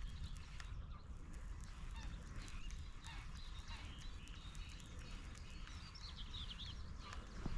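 Birds calling outdoors: scattered short calls, busiest near the end, over a steady low rumble.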